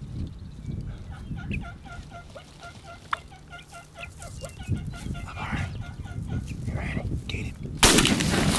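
Wild turkeys clucking: a quick series of short, evenly spaced clucks. About 8 seconds in, a sudden loud burst of noise takes over.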